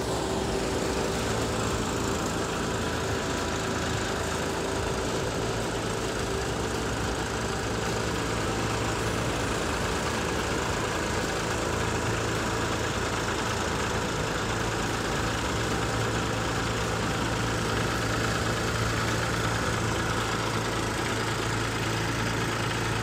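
Groundnut combine thresher running steadily, a continuous even engine drone with a constant low hum.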